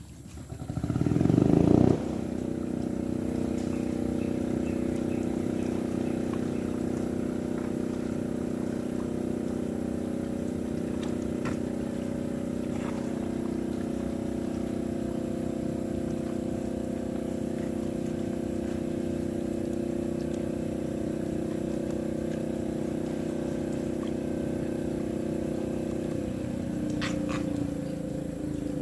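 An engine starts with a short loud burst about a second in, then runs steadily at an even idle.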